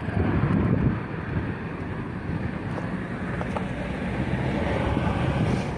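Car driving along a road: steady road and engine noise, with wind buffeting the microphone, a little stronger in the first second.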